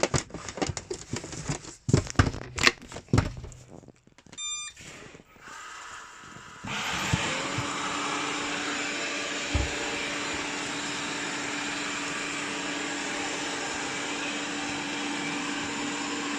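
Plastic clicks and knocks of a Venga C4 robotic vacuum cleaner being handled, then a short electronic beep, and about seven seconds in its motor starts and runs steadily with a low hum under the noise.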